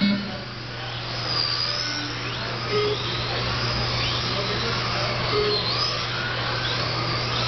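Several Tamiya TT-01 electric RC touring cars racing on a carpet track, their motors and drivetrains making a steady whine whose pitch rises and falls as they speed up and slow down. A steady low hum runs underneath.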